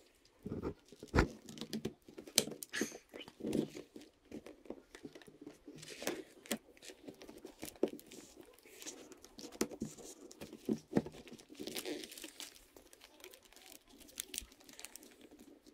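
Handling noise from small wooden cubes: irregular light clicks and knocks as the blocks shift against each other, with rustling and rubbing on the paper-covered table while rubber bands are stretched around them.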